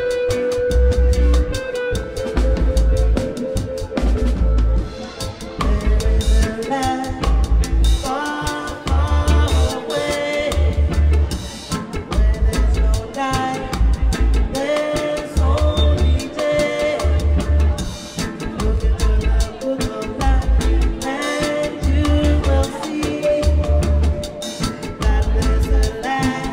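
Live reggae band playing: a deep, pulsing bass line and drum kit under electric guitar and several singing voices.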